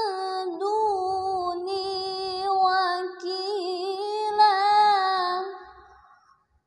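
A woman's voice reciting the Qur'an in melodic tilawah style, drawing out one long ornamented phrase with a wavering, trilled pitch. The voice fades out about six seconds in, at the end of the phrase.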